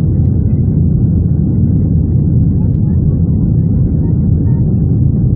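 Steady low roar of a Boeing 737-800 cabin in the climb after takeoff: the CFM56 engines and airflow heard from a window seat.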